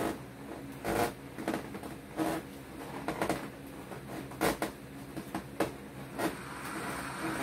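Latex balloons being handled and tied together, rubbing and squeaking against each other in irregular short bursts.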